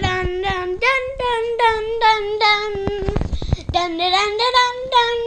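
A child singing a wordless tune on quick repeated 'dun' syllables, about four to five a second. The pitch steps up about a second in, breaks off briefly in the middle, then climbs again.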